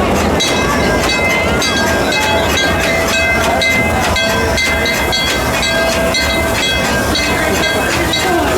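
Kid-sized amusement-park ride train rolling along its track: a steady rumble and clatter, with thin high ringing tones that come and go.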